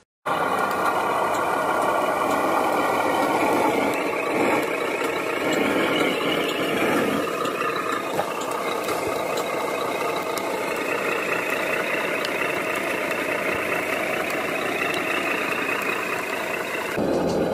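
Diesel truck engine sound running steadily, the engine note of a scale radio-controlled Mercedes-Benz log truck as it drives.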